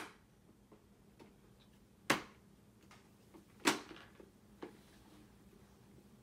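Little Tikes plastic toy lawn mower clacking and ticking as it is handled and pushed over carpet. There are sharp clacks about two seconds in and just under four seconds in, and fainter ticks between them.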